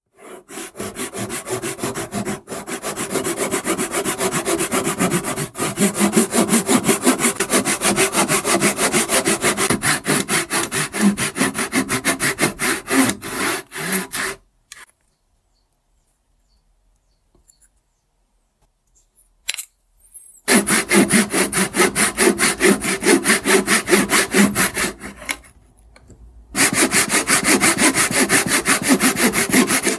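Tajima Japan Pull 265 Japanese pull saw cutting a thin slice off a beech block in fast, steady back-and-forth strokes. The sawing stops for about six seconds around the middle, with only a few faint clicks, then resumes, pausing briefly once more near the end.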